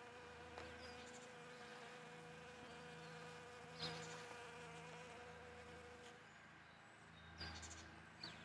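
Faint steady buzzing of a honeybee flying around a flower, with a few brief, faint high chirps.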